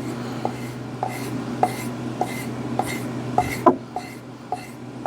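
Axe edge being stropped by hand on a leather strop loaded with honing compound: a steady rhythm of short swishing strokes, about one and a half to two a second, each with a light tick, over a steady low hum.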